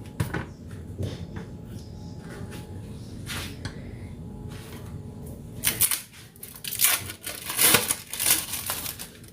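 Food preparation handling: a few light clicks and knocks, then from about six seconds in a run of loud crinkling and tearing of plastic packaging.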